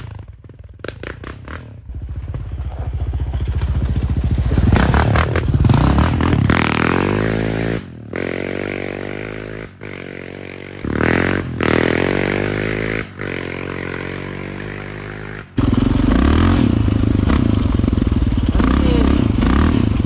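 Quad bike engine revving up and down while riding, in several short clips cut together; the last few seconds hold a louder, steadier engine run.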